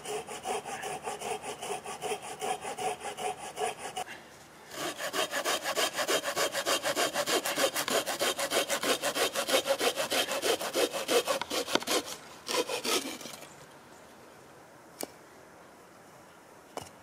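Red-handled folding hand saw cutting through a green, mossy branch with quick back-and-forth strokes. The sawing pauses briefly about four seconds in, resumes, and stops about thirteen seconds in. Two light knocks follow near the end.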